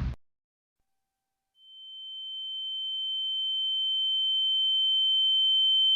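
A loud noisy sound cuts off right at the start. After a moment of silence, a single steady high-pitched tone fades in about a second and a half in and grows gradually louder: a synthetic ear-ringing sound effect.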